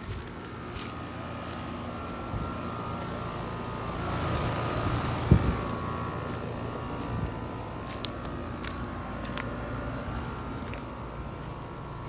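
Outdoor air-conditioner condensing units running: a steady hum with fan noise and a cluster of steady tones. The noise swells for a couple of seconds near the middle, with a single thump at about five seconds.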